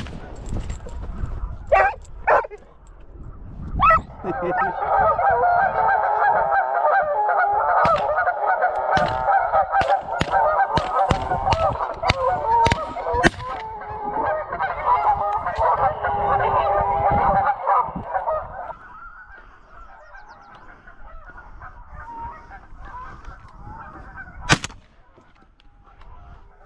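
A flock of geese honking: a loud chorus of overlapping calls from about four seconds in to about eighteen seconds, then fainter, scattered calling. Several sharp cracks sound among the honks, the loudest just past the middle.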